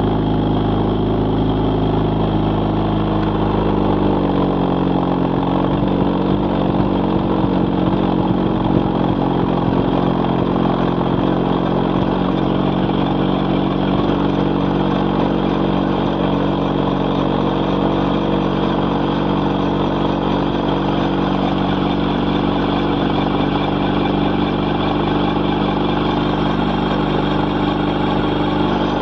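Bensen B8M gyrocopter's engine running steadily while the gyro taxis on grass, climbing in pitch about four seconds in and then holding at the higher speed.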